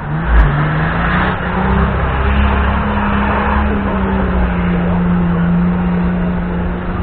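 Off-road 4x4 engine revved hard and held at high revs for several seconds, its pitch stepping up about two seconds in and easing slightly later. A heavy thump about half a second in.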